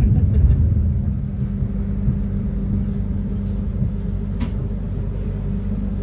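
Inside an Argo Wilis executive passenger coach: train rumble that eases about a second in to a steady low hum as the train creeps almost to a stop at a station entry signal. A single sharp click about four and a half seconds in.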